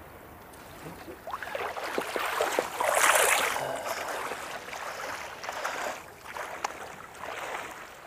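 Footsteps wading and splashing through shallow sea water, loudest about three seconds in.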